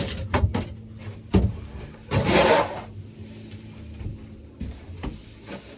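A shovel scooping used wood shavings off the coop floor: a few knocks and clicks, then a scrape lasting under a second near the middle, over a low steady hum.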